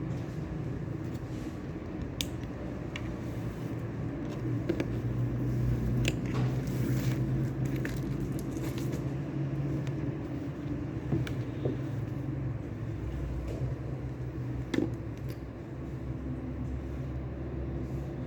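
Steady low rumbling room hum with scattered small clicks and crackles every second or so.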